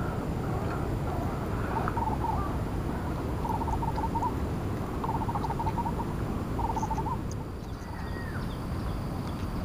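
An animal calling in short, rapid trills, three times in a row a second or so apart, over steady low background noise.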